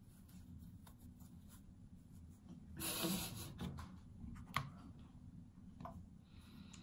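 Quiet handling of a plastic micellar water bottle and a reusable cotton pad: light rubbing and small clicks, a brief rushing burst about three seconds in, and a sharp click a second and a half later as the bottle's pink flip-top cap snaps open.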